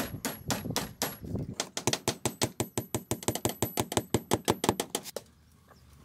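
A fast run of sharp knocks, about seven a second, typical of a hand tool striking repeatedly; it stops suddenly about five seconds in.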